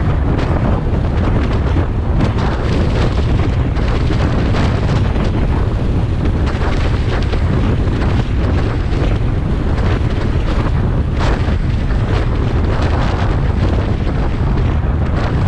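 Car driving: a loud, steady low rumble of road and wind noise, with wind buffeting the microphone.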